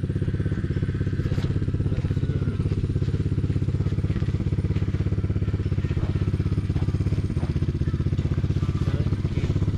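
Dirt bike engine idling steadily with a fast, even putter.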